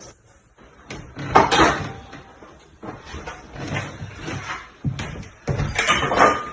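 Kitchen handling noises: a few knocks and rustling scrapes, loudest about a second and a half in and again near the end.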